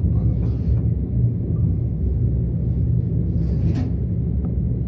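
Skylon Tower elevator car climbing, a steady low rumble at an even level.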